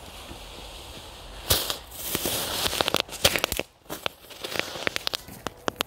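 Fountain-spinner firework burning under snow: a steady hiss, then a sudden loud flare about 1.5 seconds in with a rush of hissing, followed by a rapid series of sharp crackling pops.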